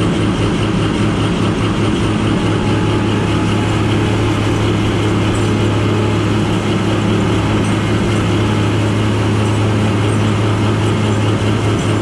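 Heavy diesel engine running steadily under load as a bogged New Holland combine harvester is pulled out of deep soft mud on a tow strap, with a constant low drone.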